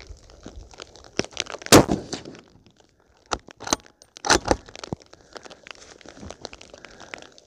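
A Thompson/Center Compass .308 bolt-action rifle fires one shot a little under two seconds in, and its bolt is worked about two and a half seconds later. Rain ticks on the microphone in small irregular clicks throughout.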